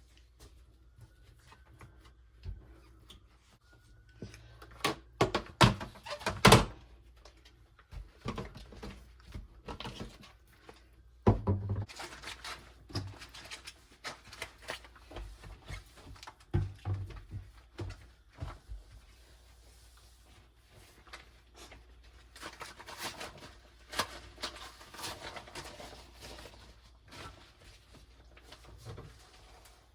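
Kitchen cupboard doors, drawers and dishes being handled: scattered knocks and thunks, the loudest cluster about five to seven seconds in and another sharp knock near twelve seconds.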